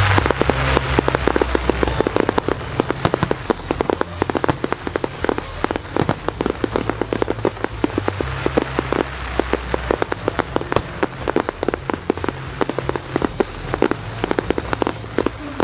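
Wide starmine fireworks firing in fan-shaped volleys: a dense, rapid run of sharp launch and burst reports, many a second, without a break.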